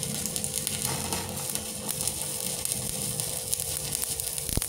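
Stick welding arc from a MOSFET inverter welder set to 80 amps, crackling and sizzling steadily as the electrode burns along the steel. A single sharp knock sounds near the end.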